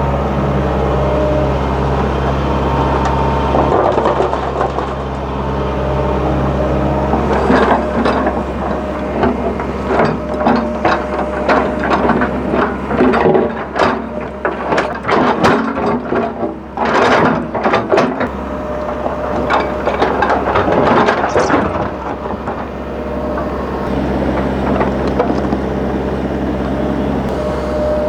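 Hitachi excavator's diesel engine running steadily, with a long run of metallic clanks and knocks from about eight seconds in until about twenty-two seconds.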